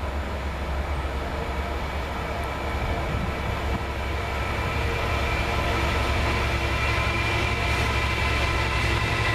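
Class 66 diesel locomotive's two-stroke V12 engine running as it approaches with a container freight train, growing steadily louder. A deep engine hum carries throughout, and a set of higher steady tones builds in the second half as the locomotive draws close.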